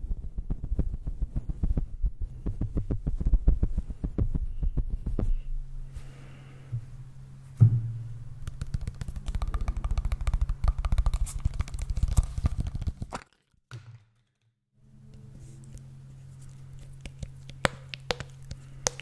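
Fluffy puffs brushed rapidly over a condenser microphone's grille: dense, close rustling with a heavy low rumble. After about five seconds a steady low hum comes up, with a single bump about eight seconds in. More rapid rubbing against the microphone follows, then a brief cut to silence around thirteen seconds, after which the hum returns with a few faint clicks.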